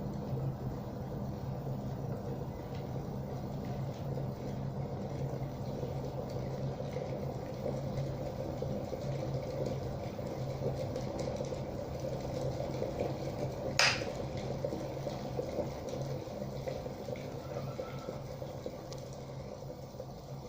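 Glass electric kettle boiling hard: a steady rushing, bubbling noise with a low hum underneath. A single sharp click about two-thirds of the way through, and the boiling eases a little near the end.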